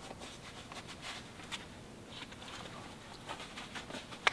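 Work gloves being pulled onto the hands: faint rustling of the glove material with light scattered clicks, and one sharper click near the end.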